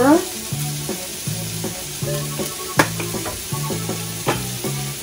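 Onion, garlic, peas and carrots sizzling steadily in hot oil in a nonstick frying pan, with a few sharp clicks, the loudest about three seconds in.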